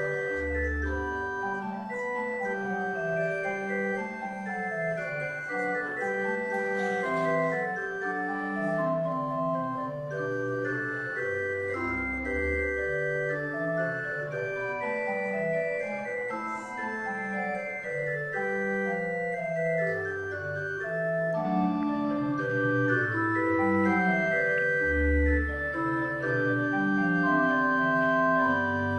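Organ playing slow music in sustained chords, with deep bass pedal notes sounding now and then beneath the changing harmonies.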